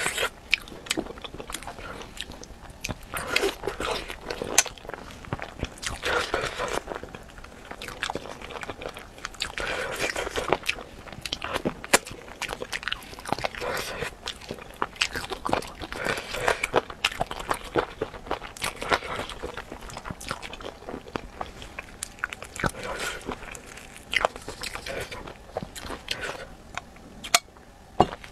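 Mouth sounds of eating spicy chicken feet: wet biting and chewing, with many short sharp clicks and small crunches as the skin and cartilage are bitten off the bones.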